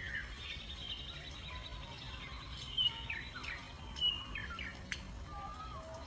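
High, thin bird chirps and short squeaks, many in a row, several falling in pitch, two of them louder about three and four seconds in. There is a sharp click near the end and a low rumble underneath.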